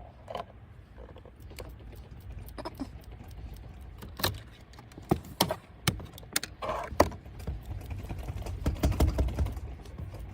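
Irregular small clicks and crinkles of double-sided mounting tape being handled, its backing film peeled off before wrapping a gear-shift lever.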